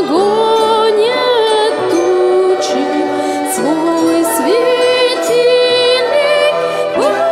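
An amateur orchestra performs a song live. A sung melody slides into its notes over a steady accompaniment of keyboard, glockenspiel and strings.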